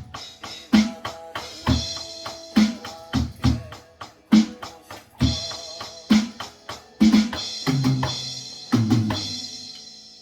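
Roland electronic drum kit playing a beat of bass drum, snare and cymbals along with the song's backing track. About seven seconds in, a tom fill steps down in pitch, then a cymbal fades out.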